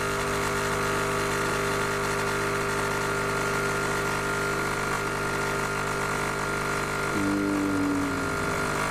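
Nescafé Dolce Gusto capsule coffee machine's electric pump buzzing steadily as it forces coffee from the capsule into a glass of milk froth for a cappuccino. A higher hum joins for about a second near the end.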